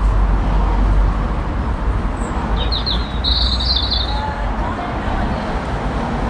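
A bird chirps a quick run of high notes about three seconds in, over a steady low rumble.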